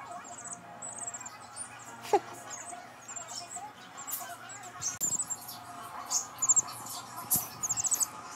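A week-old chick cheeping softly and repeatedly, each cheep a quick, very high trill, with a few brief rustles of hair close to the microphone.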